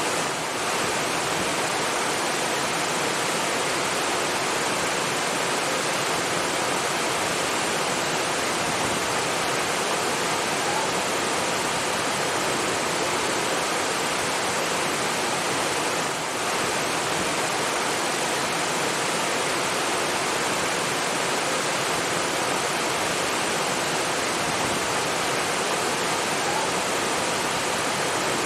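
Rushing water: a steady, even rush with no letup, dipping briefly twice.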